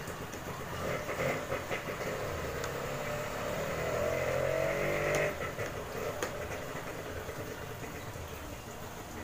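A motor vehicle engine running close by, its pitch rising and falling, loudest about four to five seconds in. A few small clicks come from a screwdriver driving a screw into a plastic helmet peak.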